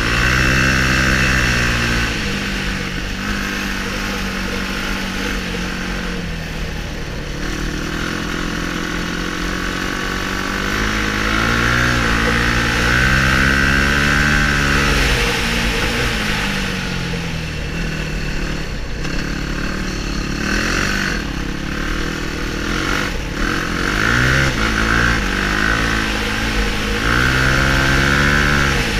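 Sport quad's engine heard from on board while racing, revving up and easing off again and again as the rider works the throttle, with quicker blips of throttle late on.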